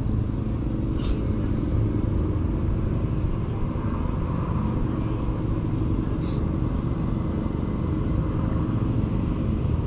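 Steady low mechanical rumble with a constant hum.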